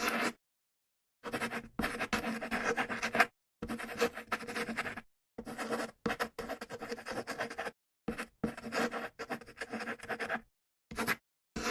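Scratching of writing on paper in spurts of a second or two, each cut off abruptly to dead silence.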